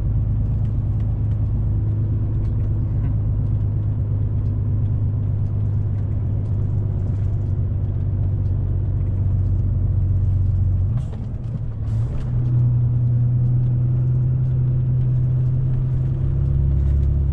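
Diesel engine of a semi-truck tractor unit heard from inside the cab, pulling hard and bogging down on a snowy uphill climb. About eleven seconds in, the drone breaks off briefly, then runs on steadily at a higher pitch.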